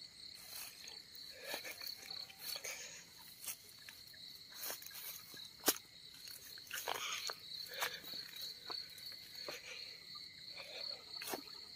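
Night insects trilling in one steady high, pulsing tone, with scattered rustles and clicks of footsteps through dry grass and stubble; one sharp click about halfway through.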